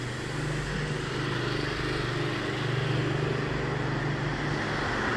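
A motor vehicle engine running steadily with a low hum, growing gradually louder.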